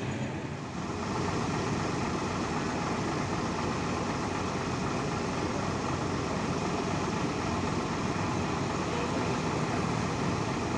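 Steady rumble of diesel bus engines running, with no single event standing out.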